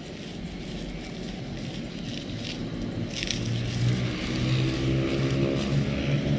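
A motor vehicle engine running nearby, getting steadily louder over the second half. Under it, the faint crunching of wafer being crumbled by hand into powdered bait in a plastic bowl.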